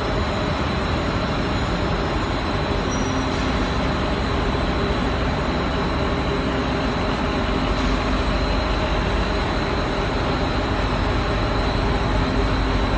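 PVC coil mat making machine running: a steady, even mechanical din from its motors and rollers, with faint steady tones held under it.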